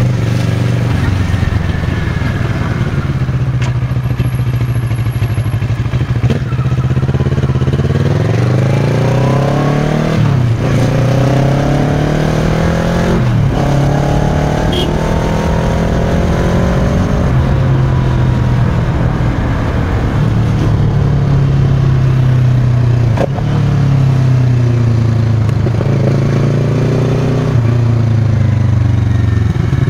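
Kawasaki Versys 650's parallel-twin engine through a Giannelli aftermarket exhaust while riding. The pitch climbs under acceleration and drops sharply at gear changes about ten and thirteen seconds in. It then holds fairly steady at cruise and climbs again near the end.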